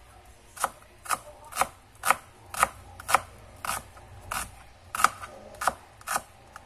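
Chef's knife chopping a red onion on a plastic cutting board: a steady run of sharp knocks as the blade cuts through and strikes the board, about two a second.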